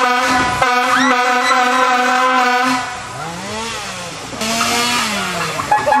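Air horn blasting a loud, steady tone for nearly three seconds, then a quieter stretch where its pitch sags and rises again, before it sounds steadily once more near the end.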